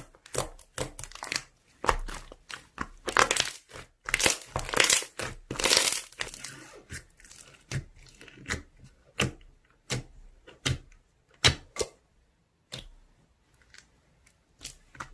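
Slime being squished and stretched by hand, giving irregular sticky crackles and pops, dense at first and thinning out in the second half.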